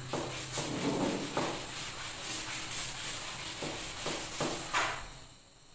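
A chalkboard being wiped clean, with repeated rubbing strokes of an eraser over the board at about two a second, stopping about five seconds in.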